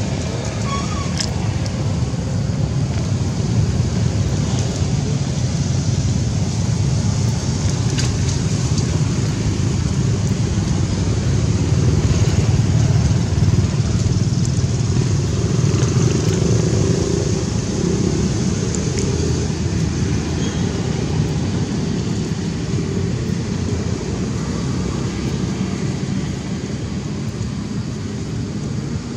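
Steady rumble of road traffic with motorcycles and scooters passing, swelling about twelve seconds in and easing off towards the end.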